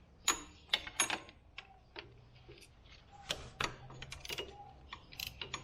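Ratchet wrench clicking in short, irregular runs as a 12 mm bolt on the power steering pump bracket is worked loose.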